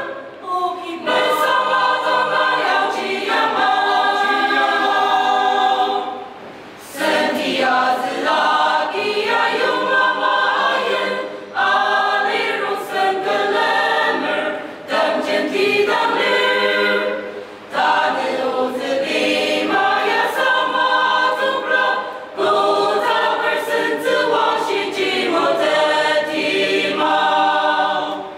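Mixed church choir of women's and men's voices singing a hymn in parts, in phrases with short breaks between them and a longer pause about six seconds in.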